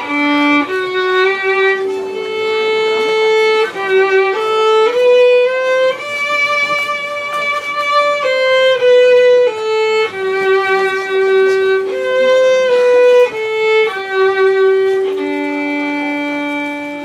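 Violin playing a slow melody of long held notes, one line at a time.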